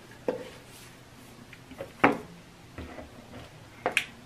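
A few separate knocks and clicks of kitchen containers being handled on a tabletop: a cardboard salt canister is set down and a plastic syrup bottle is picked up. The sharpest knock comes about two seconds in.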